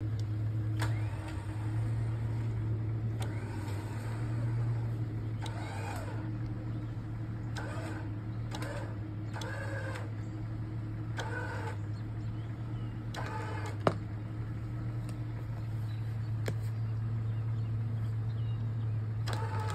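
Badlands 12,000 lb electric winch running steadily under load as it drags a tree stump over. Several short creaks come through over the motor's drone, and there is one sharp snap about 14 seconds in, as the stump gives way.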